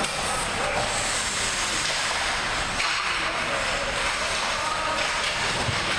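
Steady noise of ice hockey play: skates scraping and carving on the ice over a constant rumble of the rink.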